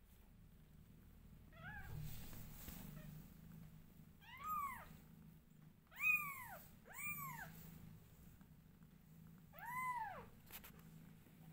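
Newborn kittens mewing: four high, arched mews that rise and fall in pitch, spaced a second or more apart, the loudest about six seconds in, with a fainter, shakier mew near the start.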